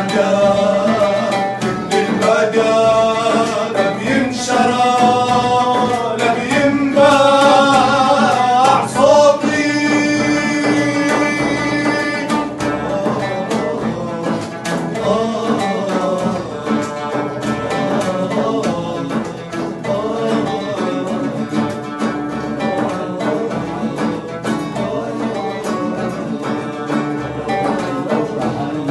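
Arabic song performed live on acoustic instruments: men singing over a nylon-string classical guitar, an oud and a hand-struck frame drum. The voices hold long, gliding notes in the first half.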